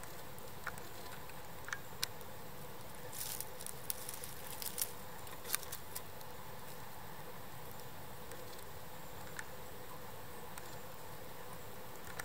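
Scattered light crackles and rustles of dry leaf litter disturbed by a hand, clustered about three to six seconds in, over a steady faint hiss.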